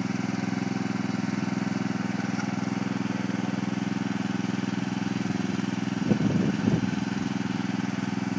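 Riding lawn mower engine idling steadily, with a short louder burst of sound about six seconds in.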